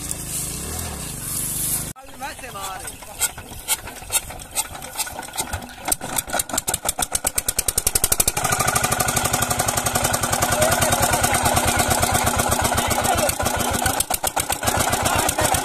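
A stationary Petter diesel engine starting: after a motorcycle engine in the first two seconds, irregular knocks quicken until, about eight seconds in, the engine catches and runs with a loud, fast, even beat.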